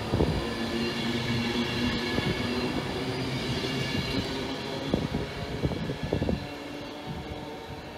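Avanti West Coast Class 390 Pendolino electric train running past close by, a steady rushing noise with a whine of several held tones from its electric traction equipment, and a few low thumps about five to six seconds in. After that the sound drops to a quieter rush as another Pendolino approaches.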